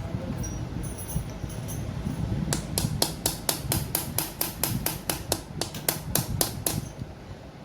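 A quick, even run of sharp clicks or taps from hand tools at work on a compressor, about five a second for some four seconds, starting a little after two seconds in.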